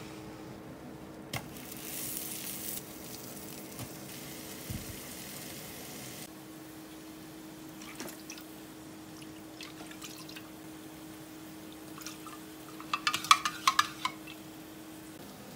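Liquid seasoning being poured from a bottle, then a spoon stirring sake, mirin and soy sauce in a measuring cup, clinking rapidly against it for about a second and a half near the end. A steady low hum runs underneath.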